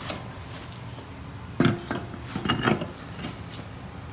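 Metallic clanks as a steel wheel is fitted onto the hub and lug studs: one sharp knock about a second and a half in, then a short cluster of ringing clinks.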